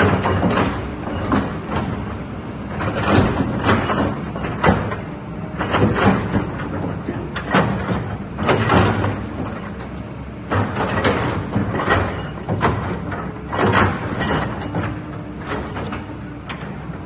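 Kobelco SK200 excavator's diesel engine running under a steady low drone, with repeated loud hissing, clattering surges every second or so as its hydraulics work.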